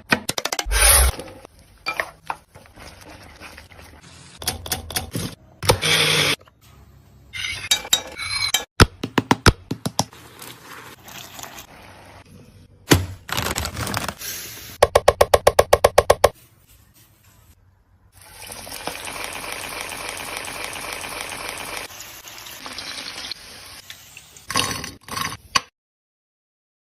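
Kitchen food-preparation sounds: a series of clatters and taps of utensils and dishes, a quick run of rapid even strokes about two-thirds of the way through, then several seconds of a steady hiss before the sound cuts off near the end.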